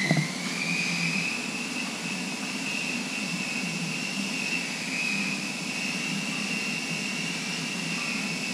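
A steady high-pitched whine that wavers slightly in pitch, over a low hum, with a short knock right at the start.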